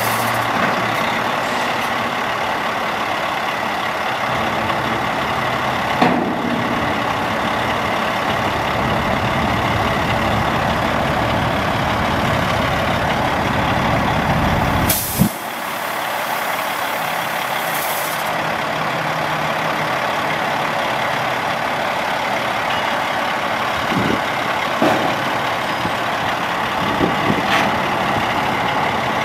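A 2007 Sterling LT9500 dump truck's Caterpillar C11 diesel engine runs steadily while the dump body is lowered. A heavier low rumble builds and then cuts off sharply about 15 seconds in, together with a loud hiss of released air, and a shorter air hiss follows a few seconds later. A few brief knocks are heard along the way.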